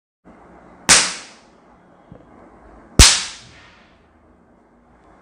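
Two sharp cap-gun bangs about two seconds apart, each with a short ringing tail: ring-cap powder set off by a snap of the fingers.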